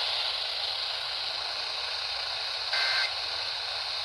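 Steady static hiss from a broadcast radio receiver, then about two-thirds of the way in a short burst of Emergency Alert System data tones, the two-tone end-of-message signal that closes an EAS alert; the next identical burst starts right at the end.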